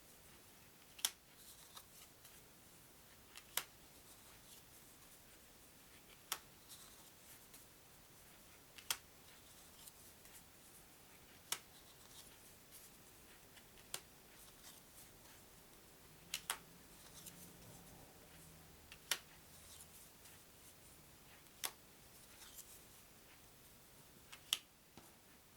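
Playing cards laid down one at a time on a table, each landing with a short sharp click, about one every two and a half seconds.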